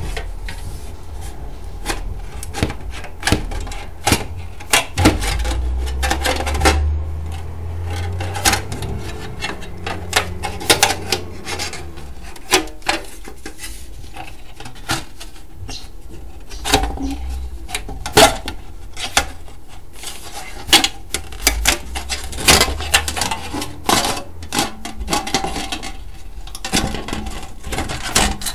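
Tin snips cutting thin, bendy sheet metal: a run of sharp, irregular snips and crinkles as the sheet is cut and turned, with a low handling rumble in places.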